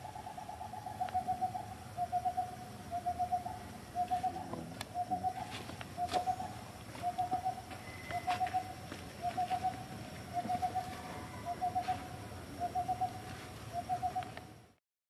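A bird calling over and over: short bursts of quick hooting notes, about one burst a second, which cut off suddenly near the end.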